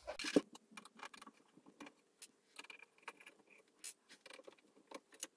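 Handling noise from a plastic home-computer case being turned over and set down: scattered small clicks, knocks and scrapes, the loudest knock about half a second in.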